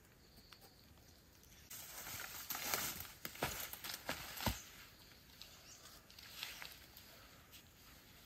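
Footsteps through dry leaf litter and brush, a rustling tread with a few sharp twig snaps, starting about two seconds in and lasting about three seconds.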